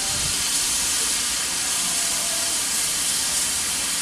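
GWR 2800 class steam locomotive No. 2857 letting off steam: a steady, loud hiss that holds unbroken.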